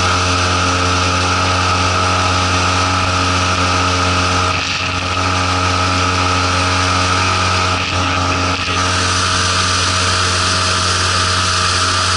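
Suzuki DF20A two-cylinder four-stroke outboard with a water-jet lower unit running steadily under load at a constant pitch while the inflatable boat planes, with the rush of wind and water. The level dips briefly twice, about four and a half and eight seconds in.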